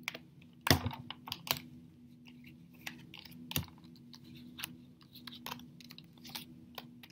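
Tarot cards being handled and laid out on a table: irregular light clicks and slaps of card on card and card on tabletop, the loudest about three quarters of a second in. A faint steady hum lies underneath.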